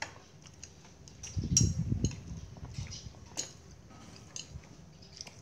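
Scattered clinks and taps of a metal spoon and chopsticks against ceramic plates and bowls, with a few louder dull knocks about a second and a half in.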